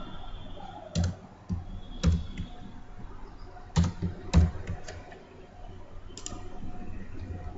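Computer keyboard keys clicking: a handful of separate key presses with pauses between them as lines of code are entered.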